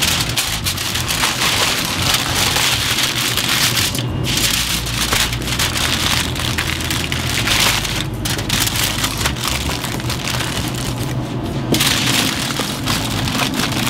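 Aluminium foil crinkling and crackling as it is folded and pressed by hand into a wrap, with a few brief pauses.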